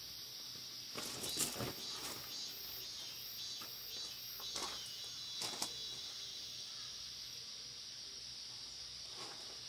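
Steady, high-pitched chorus of summer insects chirring, with a few short rustles and footsteps from a person getting out of a tent and walking on wood chips, about one to two seconds in and again around five seconds in.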